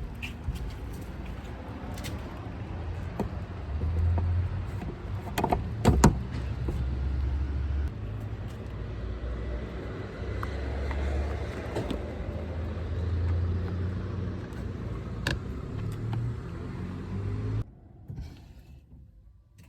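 Low outdoor rumble with handling knocks and clicks, including a pair of sharp clacks about six seconds in, as the charging plug is handled after charging; near the end the outdoor noise cuts off suddenly.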